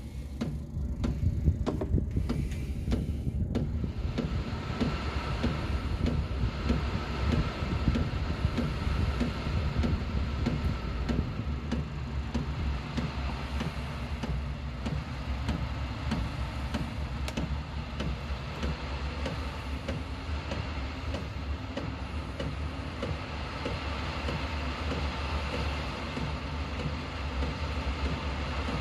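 Diesel air heater running just after ignition, its fan and burner going steadily while the fuel pump ticks. About four seconds in, a heavy rain shower starts hissing over it.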